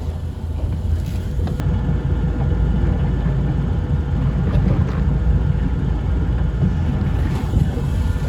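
Small fishing boat's motor running steadily, a constant low rumble, with wind buffeting the microphone.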